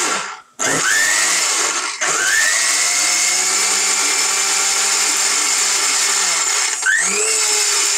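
Lords 1400-watt commercial blender's motor grinding turmeric with a little water into paste in a half-litre stainless steel jar. It runs steadily but cuts out and spins back up with a rising whine three times: about half a second in, about two seconds in, and near seven seconds.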